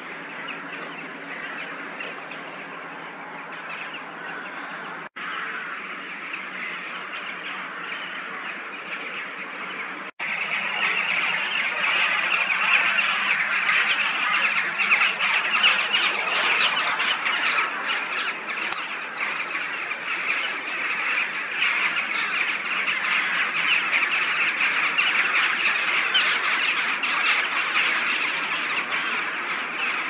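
A large flock of birds calling overhead: a dense, continuous chatter of many overlapping calls. It is fainter at first and becomes much louder after a cut about ten seconds in.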